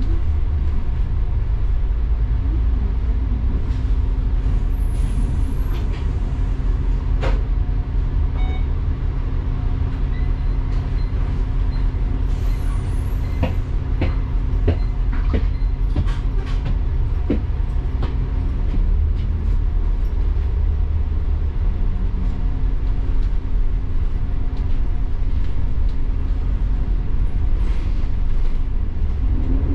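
Double-decker bus running, heard from inside on the upper deck: a steady engine and road rumble with clicks and rattles from the body and fittings, thickest in the middle.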